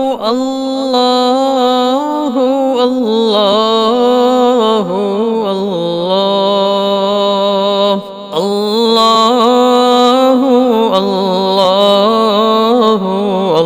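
Vocals-only Islamic zikr chanting: a man's voice sings long, melodic held notes that glide between pitches, with no instruments. There is a short break about eight seconds in.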